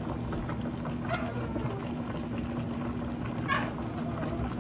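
A stainless steel pot of sinigang broth simmering on the stove: a steady low bubbling rumble under a constant hum, with two short clinks of a metal ladle against the pot, about a second in and again past three seconds.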